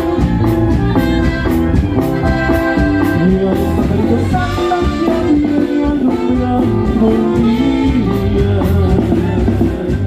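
Norteño dance music played by a live band over loudspeakers: an accordion melody over bass and a steady drum beat.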